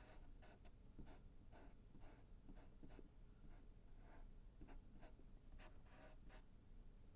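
Faint, quick strokes of a paintbrush brushing across the painting, about two a second, softening the edges of the seagull.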